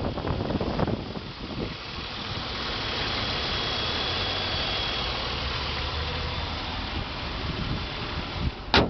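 2008 Buick Lucerne CX's 3.8-litre V6 idling steadily, running fine with no leaks. A sharp click sounds just before the end.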